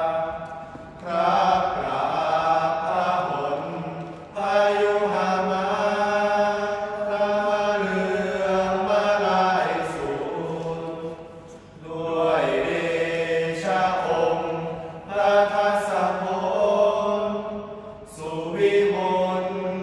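Young men chanting in unison in the Thai sarabhanya style, a melodic Buddhist chant. The voices are held in long, gliding phrases, with brief pauses for breath between them.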